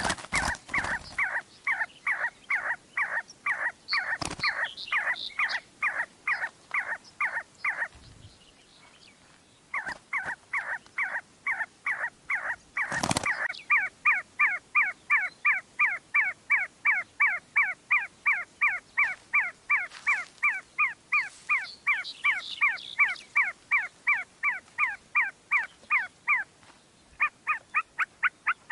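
Chukar partridge giving its rapid, evenly repeated chuck call, about three to four notes a second, with a pause of about two seconds a third of the way in and a shorter one near the end. Short bursts of noise break in at the start and, louder, a little before halfway.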